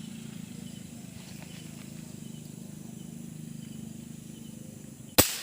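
Steady low chorus of night animals, then a single sharp air-rifle shot near the end, fired at a roosting dove with a non-pointed pellet; the bird falls.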